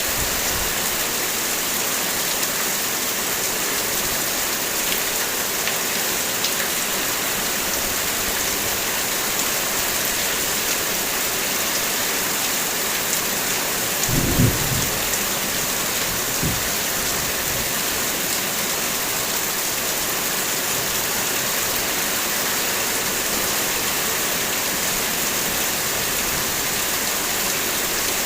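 Heavy rain falling in a steady, dense hiss. About halfway through comes a brief low rumble, with a fainter one a couple of seconds later.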